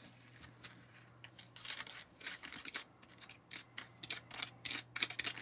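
Small plastic spoon stirring Kracie Popin' Cookin' blueberry gummy mix, powder with a scoop of water, in a plastic tray. It makes a faint gritty, crunchy scraping in short, irregular strokes: undissolved sugary powder grinding against the plastic.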